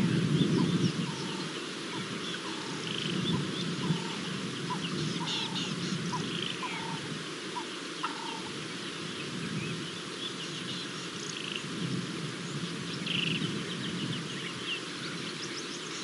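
Wild birds calling at a waterhole: many short high chirps throughout, and a run of short, lower notes repeating about every half second that stops about halfway through. A low rumble underlies it all and is loudest at the start.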